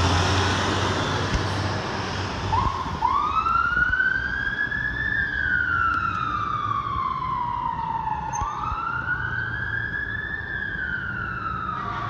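Fire department heavy rescue truck passing close with its engine running, then its siren starting about two and a half seconds in and wailing slowly up and down twice as the truck pulls away.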